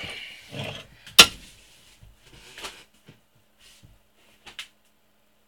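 A sharp metal clunk about a second in, then a few fainter knocks and clicks as metal parts are handled at a stopped lathe's chuck.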